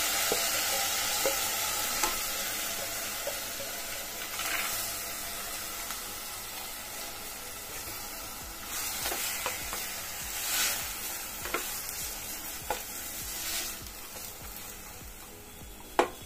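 Soaked chana dal with onion, tomato and potato sizzling in hot mustard oil in a steel pressure cooker, stirred with a spoon that scrapes and taps against the pan now and then. The sizzle slowly dies down, and a sharp tap on the pan comes near the end.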